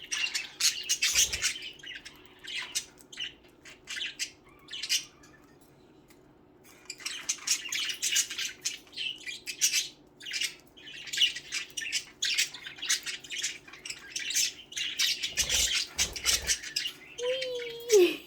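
A flock of pet budgerigars chirping and squawking in rapid, overlapping chatter, with a short lull about six seconds in before the chatter picks up again.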